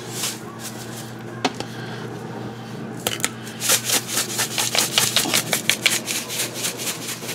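A bottle of Johnny's seasoning salt shaken over a beef roast, the granules rattling out in quick shakes, several a second, starting about three seconds in. A few single clicks come before the shaking.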